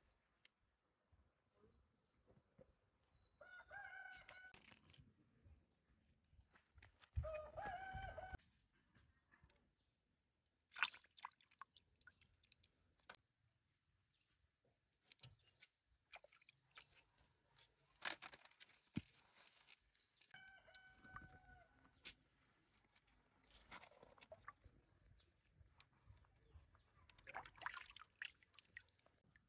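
A rooster crows three times, about 3 seconds in, about 7 seconds in (the loudest) and about 20 seconds in, over a steady high-pitched insect drone. Between the crows there are soft clicks and light splashes of hands picking snails from shallow pond water.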